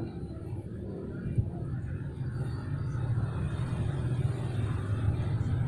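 Low, steady rumble of a vehicle engine, growing gradually louder through the second half.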